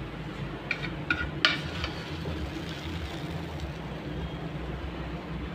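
Steady low hum of kitchen equipment, with a few sharp metal clinks of a ladle against a pan about a second in.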